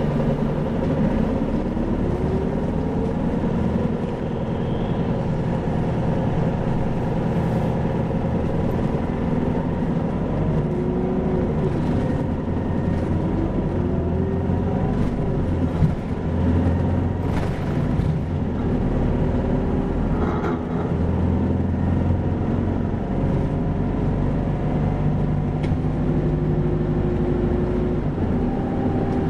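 Isuzu 2PG-LV290N3 city bus under way: the diesel engine note rises and falls several times as the bus accelerates and eases off, over steady road noise.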